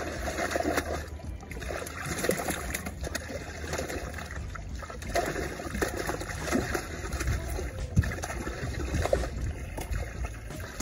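Water poured from a large bucket into a hole in the ice, splashing and trickling into slush as hatchery trout are released.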